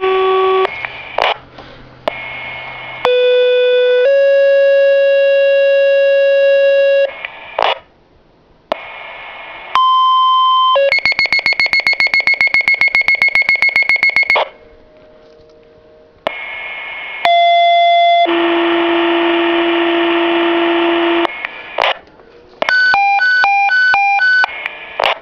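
Fire department dispatch paging tones coming over a radio pager's speaker: several sequential two-tone pages, each a short tone followed by a longer held tone of a different pitch. One page ends in a rapidly pulsing tone, stretches of radio hiss fall between the pages, and a short run of alternating beeps comes near the end.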